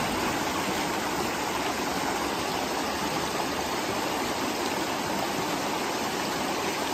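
Shallow rocky stream rushing steadily over stones and small cascades.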